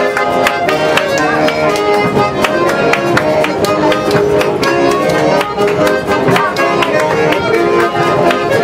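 Live folk music: an accordion playing held chords and melody over strummed acoustic guitars, with a steady beat of sharp strokes that includes people clapping along.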